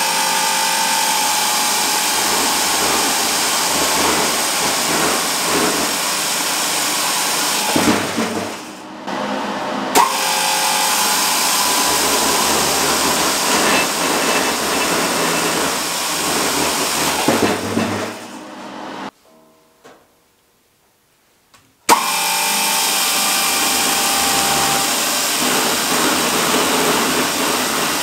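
Husqvarna chainsaw bar and chain on a homemade firewood processor, driven by a separate electric motor, sawing through a log. The chain runs in three long stretches, each starting with a sharp click. There is a brief dip about eight seconds in and a few seconds of near silence about two thirds through.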